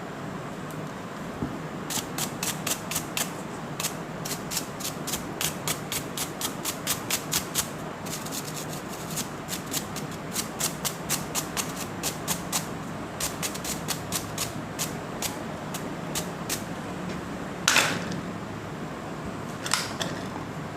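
Runs of sharp, light clicks, several a second, from small hard parts of a router bit being handled, with two louder knocks near the end.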